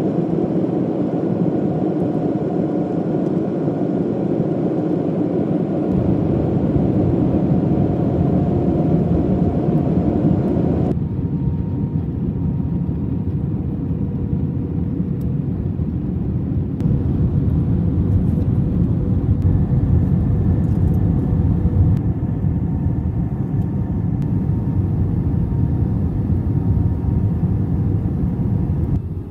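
Airliner cabin noise: the steady rush of engines and airflow heard from inside the aircraft, with a few faint steady tones. The sound changes character abruptly twice, about 6 and 11 seconds in.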